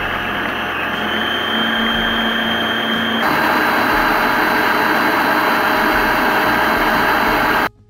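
Electric stand mixer running with its beater whipping chilled chantilly cream: a steady motor whine and whir, rising in pitch as the motor comes up to speed. It gets a little louder a few seconds in and stops suddenly near the end.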